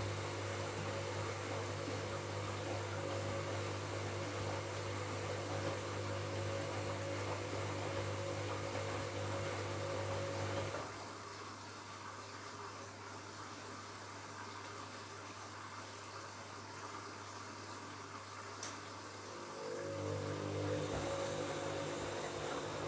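Washing machine running on a bed-linen wash: a steady electrical hum over a wash of water noise, which stops about eleven seconds in, leaving a quieter hiss, and starts again near the end, with a single sharp click shortly before it resumes.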